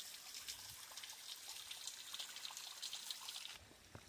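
Thin trickle of a small waterfall splashing over rock, running low after little rain. It is faint and cuts off suddenly about three and a half seconds in.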